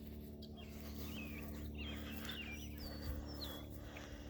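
Small birds chirping, with many short whistled chirps and quick pitch-sliding notes, over a steady low hum.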